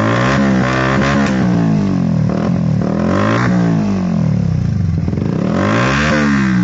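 Yamaha R15 V1's single-cylinder four-stroke engine revved through an aftermarket Akrapovic-brand trihexa muffler with its silencer insert removed, in several blips whose pitch rises and falls back to idle.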